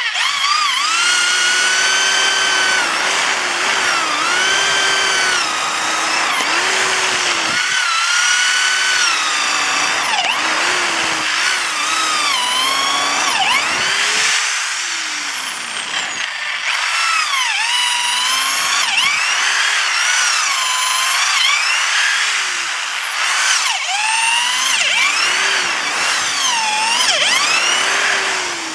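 Power drill turning a long auger bit, boring into the end grain of a freshly cut spruce Christmas-tree trunk. The motor whine keeps dipping in pitch and recovering as the bit bites into the wood and frees up again.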